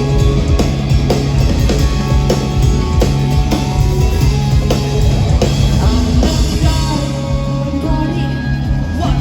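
Rock music with electric guitar, bass and drums playing at a steady beat.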